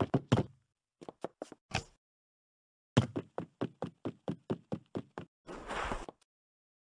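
Cartoon footstep effects for small plastic LEGO minifigures running: quick dry clicks and taps, a few at first, then a run of about five a second. Near the end comes a short noisy burst of about half a second.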